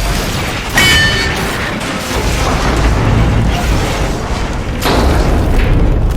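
Train crash sound effect: heavy rumbling and grinding throughout, with a sharp crash about a second in that carries a brief metallic ring, and another crash near five seconds.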